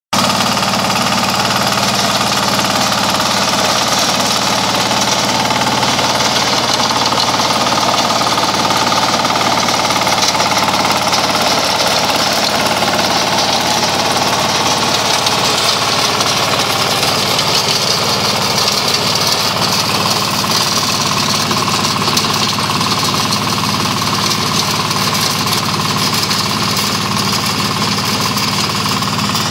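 Mini tractor's small single-cylinder diesel engine running steadily under load while its rear rotary tiller churns through stubble-covered soil.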